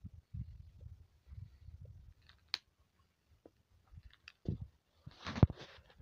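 Phone handling noise: scattered taps and clicks with low rumbles as the phone is moved. A short rustle with one sharp knock comes about five and a half seconds in.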